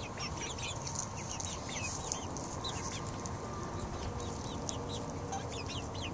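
Young Cornish cross broiler chicks peeping: a steady scatter of many short, high chirps.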